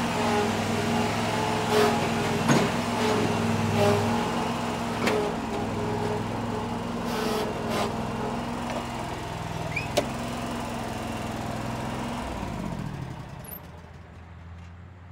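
Mower engine idling steadily, with a few sharp clicks and knocks over it. About twelve seconds in it winds down and stops.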